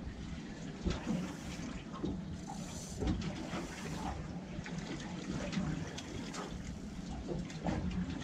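Water lapping and slapping against the hull of an anchored boat, an irregular run of small splashes.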